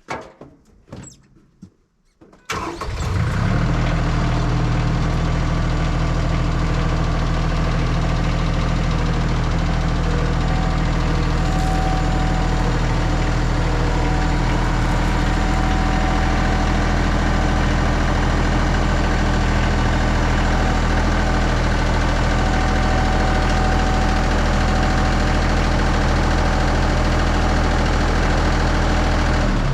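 A few light knocks, then the Bad Boy 4035 compact tractor's diesel engine starts about two and a half seconds in and runs steadily at a constant speed.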